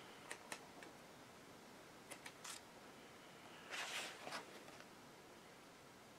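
Paper pages of a large softcover book being turned by hand: a few faint ticks, then a short rustle of flipping pages about four seconds in.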